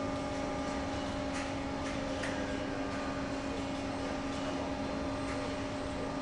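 Steady hum of workshop machinery or ventilation, one fixed tone with a few overtones, with a few faint clicks a little over a second in and around two seconds in.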